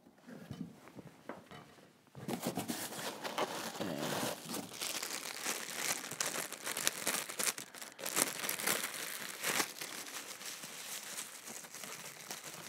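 Small plastic parts bag crinkling and rustling as it is handled and opened, starting about two seconds in after a few soft knocks.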